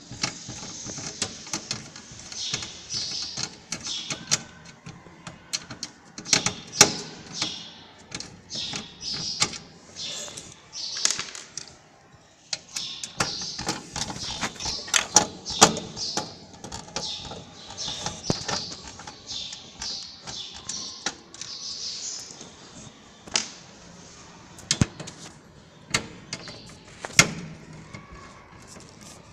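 Screwdriver working the motherboard's mounting screws out of a steel desktop computer case, with the board handled against the case: irregular sharp clicks and taps between bursts of scraping.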